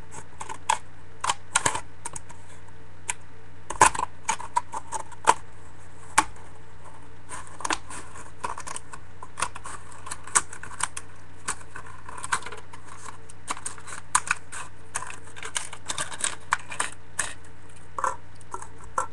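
Scissors cutting through a hard plastic cup: a string of irregular sharp snips and cracks of the plastic.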